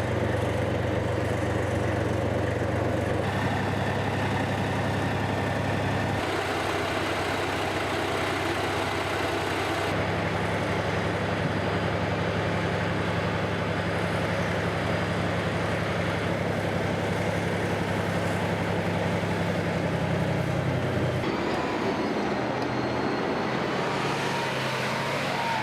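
Heavy vehicle engines running steadily across several edited shots, the engine note changing abruptly at each cut. Near the end a fainter whine wavers above the engine.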